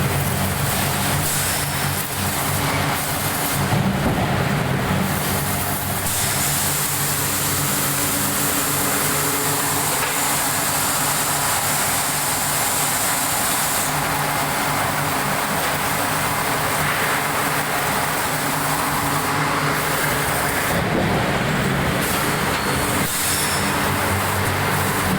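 Steady industrial machinery noise from a mechanical forging press and its shop: a continuous low hum under a wash of noise, with a hiss of air that comes in about six seconds in and falls away about halfway through.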